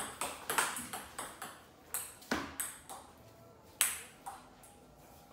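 Table tennis rally: the ball clicking sharply off the paddles and the table in quick alternation, a few hits a second, then a few more spaced clicks as the point ends.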